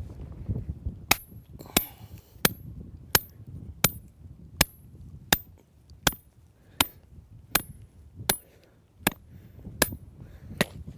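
Hammer striking a metal hand driver, driving a plastic marking stake into hard-packed dirt. About fourteen sharp, evenly spaced strikes begin about a second in, roughly four every three seconds, each with a short metallic ring.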